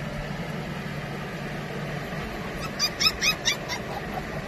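Australian Shepherd puppies yipping: a quick run of about five short, high yips about three seconds in, over a steady low hum.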